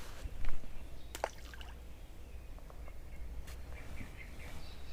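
Wind rumbling on the microphone at a lakeside, with a few sharp clicks and splashy knocks from handling a small caught fish at the water's edge, the loudest about half a second in. Faint bird chirps near the end.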